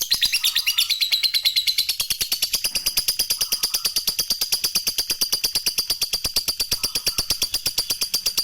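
Lovebird's long, unbroken ngekek chatter: a fast, steady run of sharp, high notes, about ten a second.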